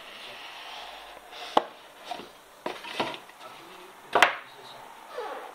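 Hands handling the fishing reel's box and packaging on a hard surface: a few sharp knocks and clacks, the loudest a little over four seconds in.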